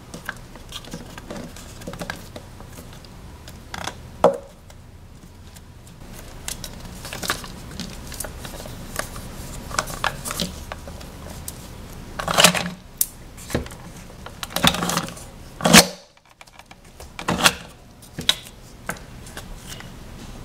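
Hard plastic clicks and knocks from a Play-Doh toy's plastic mold and figure being handled while modeling dough is pressed in and peeled off by hand. Light tapping throughout, with a handful of louder knocks spread through the middle and later part.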